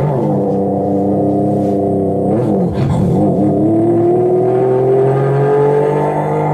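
A man's voice making a sustained vocal sound effect in imitation of an engine: one held, droning tone that dips in pitch about two and a half seconds in, then rises slowly, like an engine accelerating.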